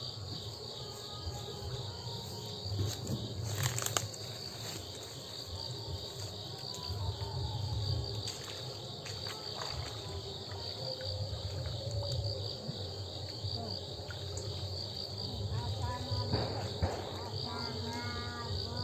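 Crickets chirping in a steady, fast, evenly pulsing trill, with faint voices toward the end.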